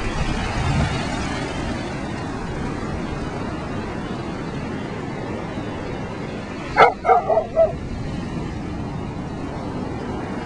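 A golden retriever barking four times in quick succession, about two-thirds of the way in, over a steady wash of surf.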